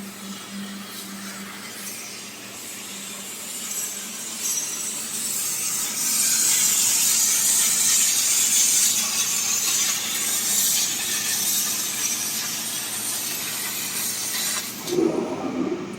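CNC laser cutting machine cutting sheet metal: a steady high hiss from the assist gas and cut that grows louder about six seconds in, with a short knock near the end.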